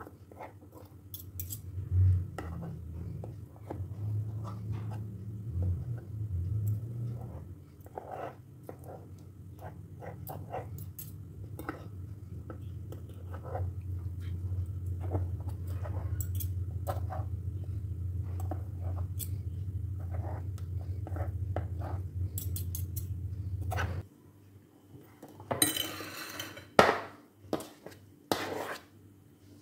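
Two metal forks clicking and scraping against a plastic cutting board as cooked chicken is pulled apart, in many short irregular clicks. A steady low hum runs underneath and cuts off suddenly about 24 seconds in, and near the end a fork scrapes the shredded chicken off the board onto a plate.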